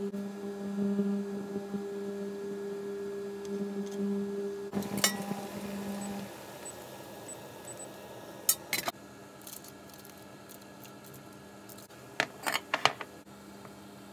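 Kitchen work sounds: a steady low hum for the first five seconds or so, then scattered clicks and taps of a knife, pan and cooktop controls, and a quick run of clinks near the end as food is set into ceramic bowls.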